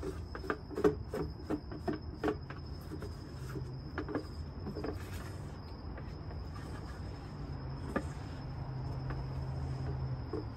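A wooden stir stick knocking and scraping inside a plastic mixing container as the last of the epoxy is scraped out: a quick run of clicks over the first half, fewer after. A cricket's steady high trill sounds behind it.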